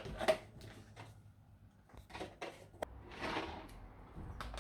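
Handling noises from kitchen items and packaging: scattered light clicks and knocks, a brief rustle about three seconds in, and a sharper knock near the end.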